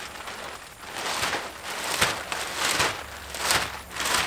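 Woven plastic house wrap rustling and crackling as it is pulled and unrolled against a stud wall, in repeated swishes with a few sharp snaps.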